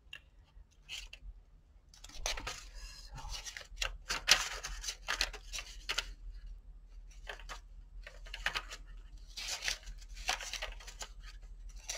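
Paper pages of an old poetry album from around 1940 being turned by hand: a series of rustling page flips that starts about two seconds in.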